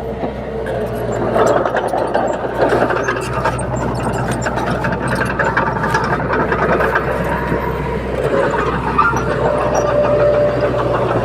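Komatsu D21P bulldozer's diesel engine running steadily under work, with many short clicks and clanks over it.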